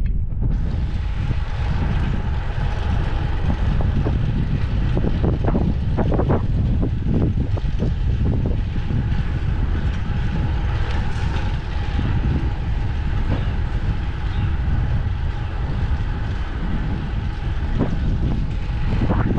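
Wind rushing over the microphone while riding a fixed-gear bicycle, with a faint steady whine underneath. A few short knocks come about five to seven seconds in.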